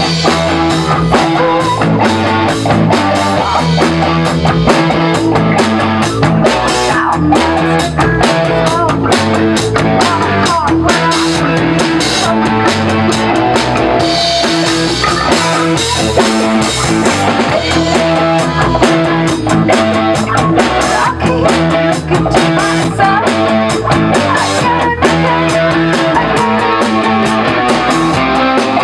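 A rock band jamming live in a small rehearsal room: electric guitar chords over a drum kit with steady beats and cymbal crashes, played continuously and loud.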